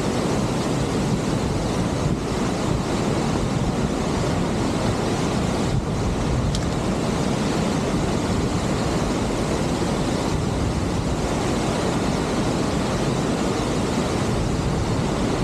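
Steady rush of a waterfall and the river churning below it, an even unbroken roar of water, with some wind rumble on the microphone.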